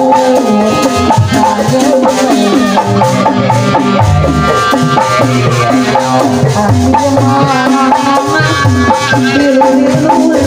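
Live Sundanese dance music from a band: steady percussion under a fast, ornamented melody line, played loud and without a break.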